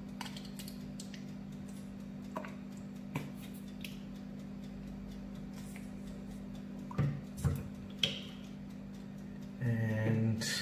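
A measuring spoon and a plastic squeeze bottle of barbecue sauce being handled over a plastic measuring jug: a few light clicks, then three sharper knocks about seven to eight seconds in, over a steady low hum. A short pitched squelch or murmur comes near the end.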